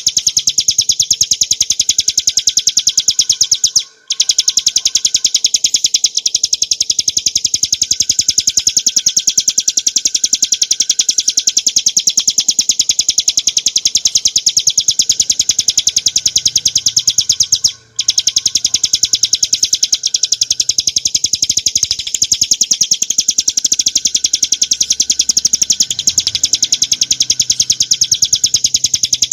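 Ciblek gunung (a prinia) singing a fast, almost unbroken run of high, sharp repeated chirps. The song breaks off briefly twice, about four seconds in and again near eighteen seconds.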